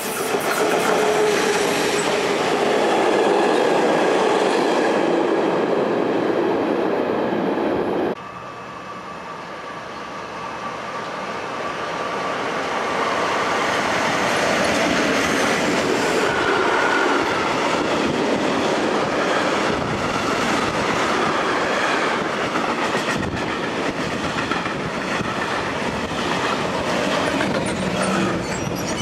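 A freight train hauled by an SBB Re 4/4 II electric locomotive rolls past close by, a loud steady rush of wheels on rail with clickety-clack over the joints. About 8 seconds in the sound cuts to a quieter passing that builds up as a string of sliding-wall freight wagons rolls by, with a thin wheel squeal at times.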